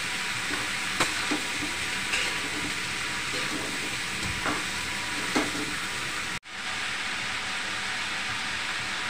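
Potatoes and green beans frying with a steady sizzle in a steel kadai. A metal spatula clinks and scrapes against the pan a few times in the first half. The sound breaks off for an instant about six seconds in.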